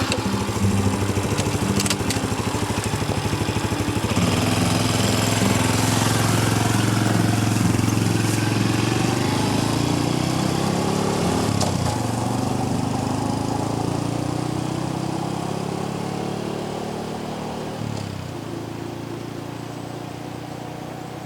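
Honda Cross Cub 110's small single-cylinder engine running just after starting, its pitch rising and falling as it revs, then gradually fading out near the end.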